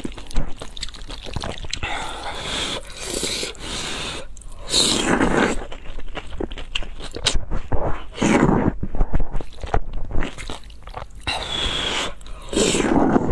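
Close-up slurping and chewing of wide flat noodles in black bean sauce: several long wet slurps, with smacking and chewing between them.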